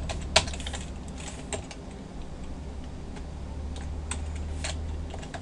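Computer keyboard keystrokes typed unevenly, a few scattered key clicks with one louder click about half a second in.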